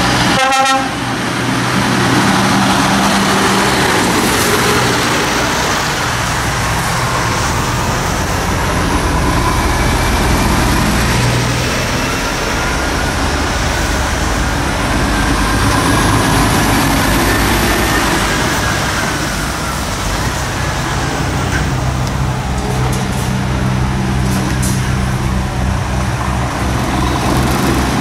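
Scania articulated lorries' diesel engines running as they pull slowly round a junction, a steady heavy engine note that swells as each truck comes close, over general traffic and tyre noise.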